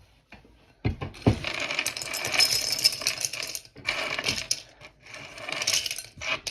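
Small hard plastic keyboard parts clicking a few times, then long stretches of dense rattling and scraping as they are rubbed and handled.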